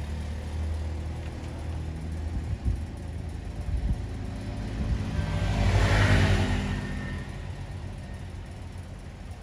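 A motor vehicle engine running in the background with a steady low rumble. It swells louder to a peak about six seconds in, then fades, as if a vehicle passes close by.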